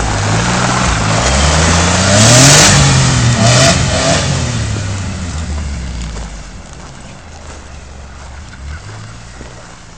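Small 800cc engine of a mini Jeep-style buggy revving as it accelerates away, its pitch climbing, dipping and climbing again, with a brief rush of noise at the loudest point about two and a half seconds in. The engine then fades steadily as the buggy drives off into the distance.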